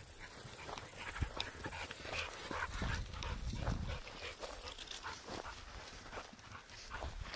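A dog's sounds close by, over the scuffing and rustle of footsteps through tall grass and brush, with many short crackles throughout.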